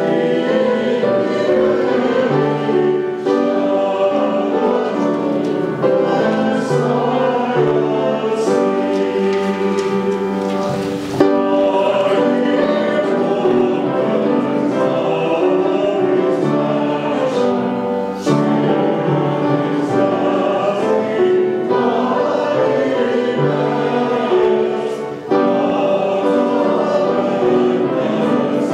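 A group of voices singing a hymn together in phrases of held notes.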